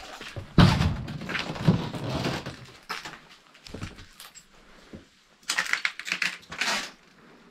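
Debris crunching and clattering underfoot as someone steps over rubbish and broken boards. It is loudest in the first two seconds, followed by scattered clicks and, near the end, a burst of scraping and rustling.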